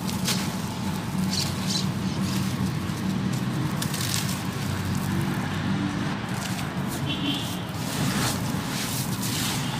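Dry sand-cement chunks crunching and crumbling between hands, with gritty dust and grains pouring into a pan in repeated handfuls. A steady low hum runs underneath.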